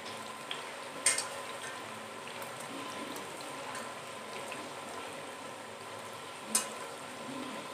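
Flour-coated green beans sizzling steadily as they deep-fry in a pan of hot oil. Two sharp clicks stand out, one about a second in and a louder one near the end.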